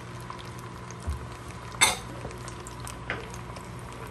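Container knocking against a bowl as pieces of smoked fish are tipped in: a dull thump about a second in, a sharp clink just before two seconds, and a lighter knock about three seconds in, over a steady low hum.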